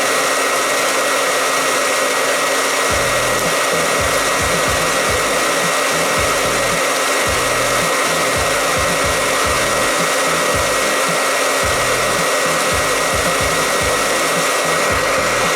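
Hair dryer running steadily, blowing air into a tin-can popcorn popper, with a steady high whine over its rushing air. An uneven low flutter sets in about three seconds in.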